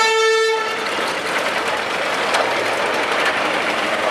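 A single-note horn blast cuts off about half a second in. It gives way to the steady running noise of a moving train.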